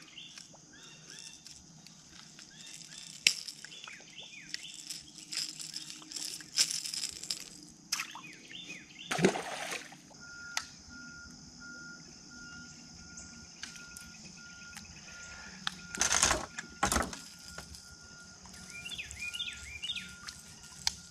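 Outdoor lakeside ambience: birds chirping faintly, a steady high hiss and scattered small clicks, with two brief rushes of noise. From about halfway, an evenly repeating electronic beep runs on.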